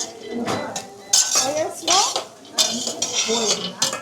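A metal utensil scraping and clinking against a pan in a run of about six short strokes, as nuts toasting in butter are stirred.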